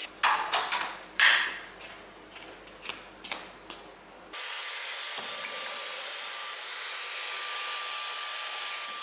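A few handling knocks and clicks, then about four seconds in a Dyson cordless stick vacuum starts abruptly and runs steadily, a rushing hum with a thin high whine.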